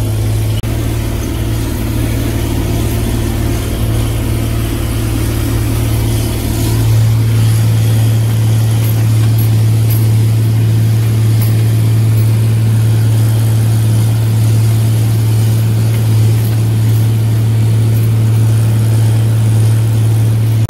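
Farm tractor engine running steadily while pulling a field cultivator through the soil, a deep, even drone. About seven seconds in the drone grows louder and stays there.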